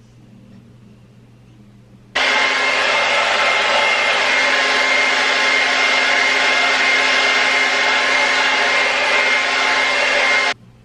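Hair dryer blowing steadily for about eight seconds, with a constant whine over the rush of air, switched on about two seconds in and off near the end. It is drying a freshly applied layer of wig glue.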